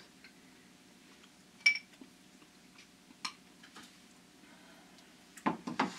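A metal spoon clinking against a small glass dish, with single sharp clinks about two seconds in and again about a second and a half later, and a few quieter clicks near the end.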